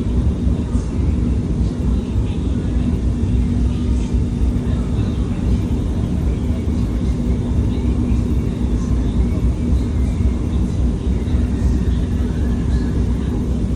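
LRT Line 1 light-rail train running, a steady low rumble with a constant hum underneath.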